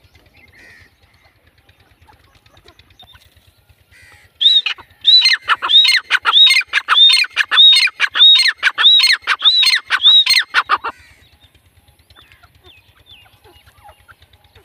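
Female grey francolin calling: a series of about a dozen loud, arched notes that rise then fall, about two a second. It starts about four seconds in and stops about seven seconds later.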